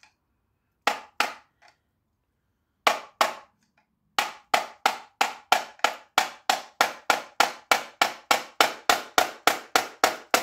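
Hammer striking the handle of a screwdriver held against an electric motor's metal casing, driving it like a chisel to break the casing loose. Sharp knocks: two pairs of blows, then a steady run of about three blows a second.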